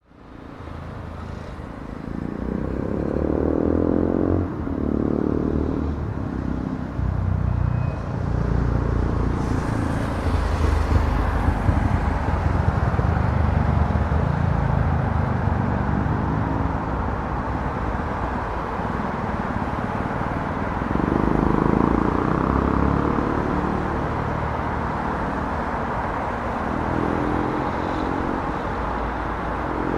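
Street traffic noise: a steady rumble of road vehicles, fading in over the first couple of seconds, with several nearer engines swelling and fading as they pass, around the start, about 21 seconds in and near the end.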